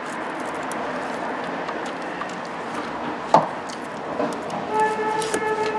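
Hand ratchet snugging down the belt tensioner bolt on a Hyundai V6, over a steady hiss, with one sharp click about three seconds in and a brief steady tone near the end.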